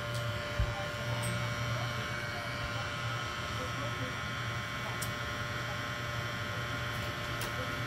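Small battery-powered desktop vacuum sweeper running with a steady electric hum.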